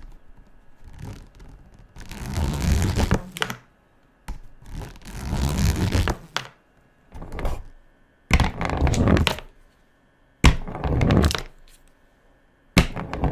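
A series of about six knocking and crinkling bursts, each lasting around a second, with brief silences between them.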